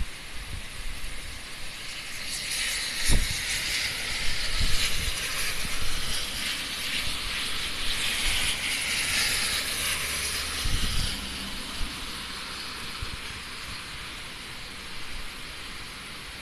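Typhoon wind and heavy rain. A hissing surge of wind-driven rain swells about two seconds in and eases off after about eleven seconds, with wind buffeting the microphone in low thumps.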